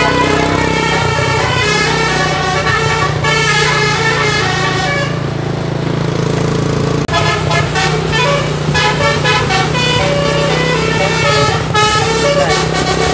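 Bus telolet musical air horn playing a quick tune of stepped notes over a steady low hum, breaking off briefly about halfway before going on.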